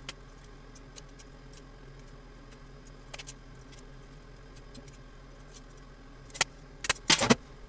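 Metal kitchen tongs clicking and clinking against each other and the frying pan while shrimp are placed on a paella, with scattered light clicks and then a few sharp, loud clacks near the end.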